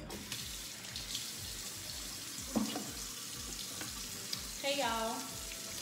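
Kitchen faucet turned on and running steadily into a stainless steel sink while hands are washed under it. A steady hiss and splash of water.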